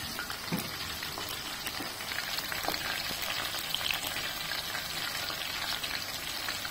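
Batter-coated prawns deep-frying in a wok of hot oil: a steady sizzle with many small crackles and pops.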